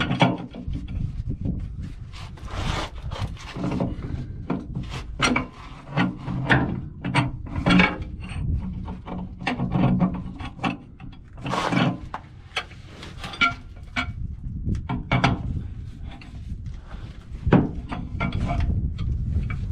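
Large pipe wrench turning a 3-inch stainless steel 90-degree elbow onto threaded pipe: irregular scraping, rubbing and metal clunks as the wrench bites, slips and is reset, over a steady low rumble.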